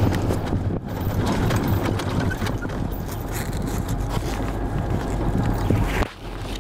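Armored military patrol vehicle's engine running steadily with wind and road noise, heard from the open gunner's turret; the noise dips briefly about six seconds in.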